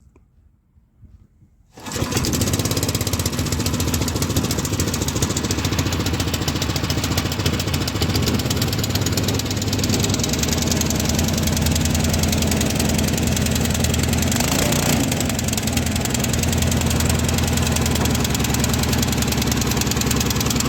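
The engine of a water pump comes on abruptly about two seconds in and then runs steadily with an even, rapid pulse.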